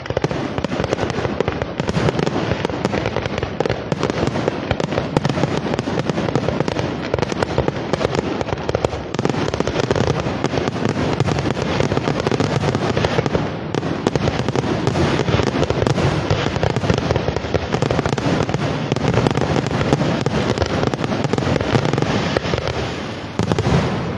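Fireworks grand finale: a dense, nonstop barrage of shell bursts and crackling, many bangs a second, easing briefly near the end.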